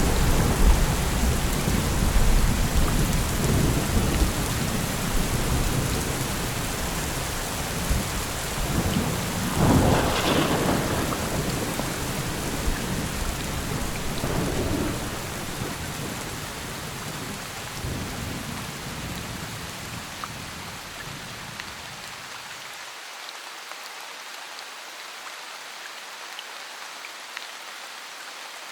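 Steady rain with rolling thunder. A louder thunderclap comes about ten seconds in, then the rumbles die away, and for the last several seconds only the rain hiss is left.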